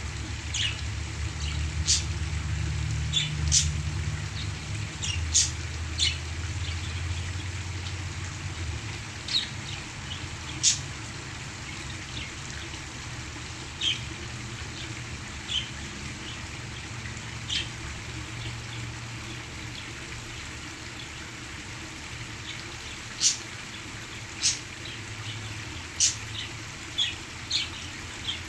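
Pet parakeets giving short, sharp chirps, scattered and irregular, over the steady rush of waterfall water. A low rumble underlies the first nine seconds or so, then fades out.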